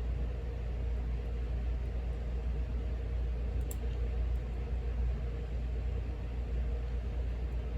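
Steady low background rumble, with one faint small click about three and a half seconds in, typical of a small key pin being set into a padlock plug.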